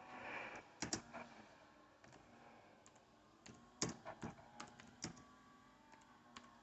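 Keys of a Logitech K380 Bluetooth keyboard being typed on: faint, irregular soft clicks, a few about a second in and a quicker run of keystrokes in the middle.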